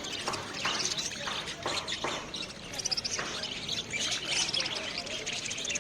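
Many caged parrots chirping and squawking over one another in a dense, continuous chorus of short high calls.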